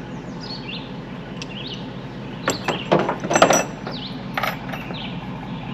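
A run of sharp metallic clicks and clanks about halfway through, with one more a second later, from a jack being worked to lift the front end of a portable sawmill. Small birds chirp over a steady low hum.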